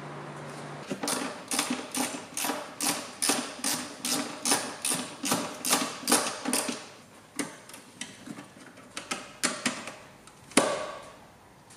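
Ratchet wrench worked in quick short strokes, its pawl clicking at about two and a half strokes a second. It then slows to a few scattered clicks, with one sharper knock near the end.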